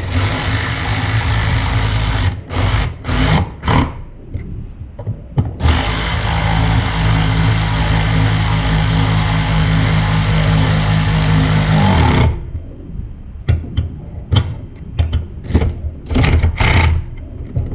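Handheld power tool running the sprocket adapter bolts down: a run at the start, a few short trigger pulls, one long steady run of about six seconds, then several short bursts.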